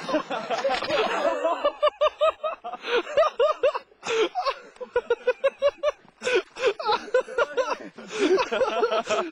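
Hard laughter in quick repeated bursts.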